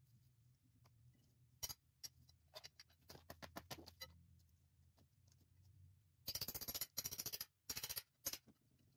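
Sharp knocks and cracks from a hand tool working at the wooden spokes of a Model T rear wheel to free them from the hub. A dense run of rapid clicking comes about six seconds in and lasts a little over a second, followed by a few more knocks.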